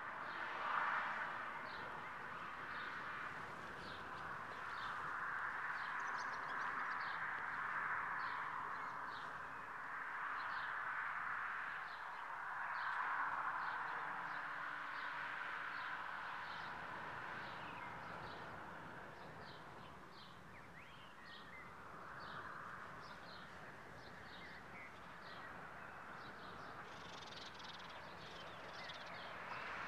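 Birds calling and singing in open country: short high notes repeating about once a second over a steady band of sound.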